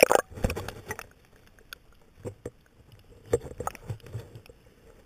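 Water splashing as a GoPro in its waterproof housing plunges under the surface, heard loudest right at the start. It is followed by muffled underwater swishes and knocks every second or so, heard through the housing.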